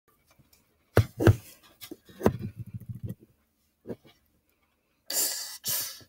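Hands handling plush toys and bedding: a couple of sharp knocks about a second in, more knocks and rustling after, then two short breathy bursts near the end.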